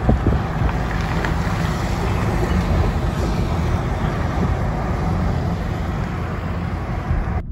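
Heavy low-loader lorries carrying tracked machines going by close, a steady rumble of engines and tyres mixed with wind buffeting the microphone. The sound cuts off suddenly near the end.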